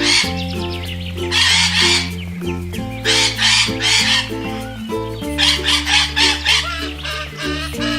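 Macaws squawking, repeated calls that come faster in the second half, over background music with a steady bass line.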